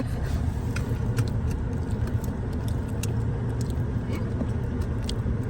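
Steady low rumble of a car driving, heard from inside the cabin, with a few faint light clicks.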